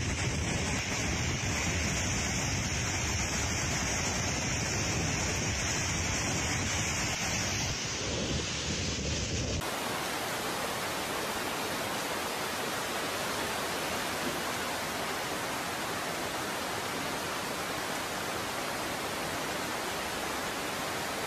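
Muddy flash-flood water rushing: a steady roar of noise with a heavy low rumble, like wind on the microphone. About ten seconds in it cuts to an even, hissing rush of floodwater with much less low end.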